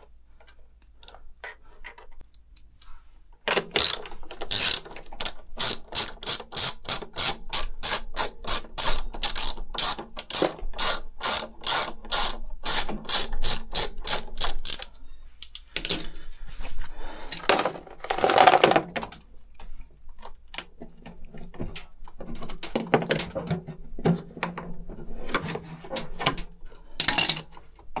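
Ratcheting screwdriver clicking in a quick steady run as it turns the screw on a washing machine's heating-element terminal, which is melted and oxidised. A louder handling noise about two-thirds through interrupts the clicking, and then it resumes.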